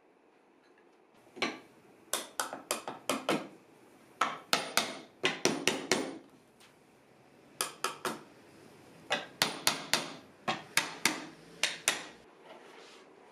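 A mallet knocking a walnut stool's top rails down onto its legs to seat the freshly glued joints. The strikes come in bursts of several quick, sharp knocks, with short pauses between bursts.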